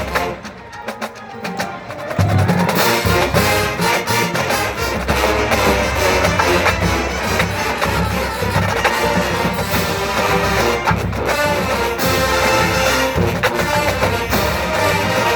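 College marching band playing, brass over a drum line. A softer stretch gives way about two seconds in to the full band playing loudly.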